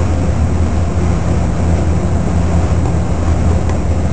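NASTAR centrifuge running at speed with the rider held at about 3 G: a steady low hum under an even rushing noise.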